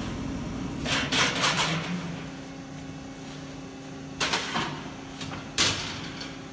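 A Piranha CNC hydraulic press brake running with a steady hum while 10-gauge steel sheet is bent and handled in it, giving three short clusters of clunks and rattles, about a second in, past four seconds and near the end.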